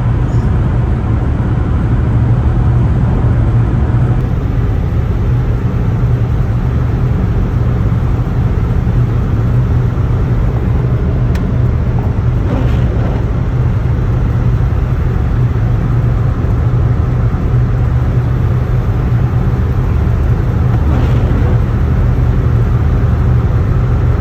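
Steady, low road and engine noise of a van being driven, heard from inside the cabin.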